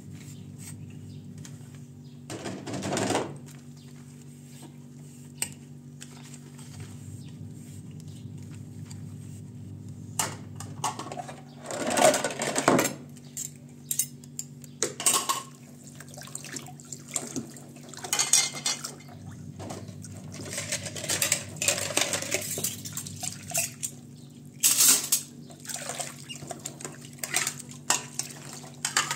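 Dishes being washed by hand in a sink. Ceramic bowls and plates clink against one another and against a metal tray, with intermittent splashes and runs of tap water, the busiest clatter about twelve seconds in, over a steady low hum.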